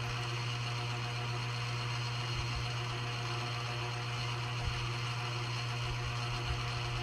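A steady low mechanical hum, with a few faint low knocks about a third of the way in, near the middle and near the end.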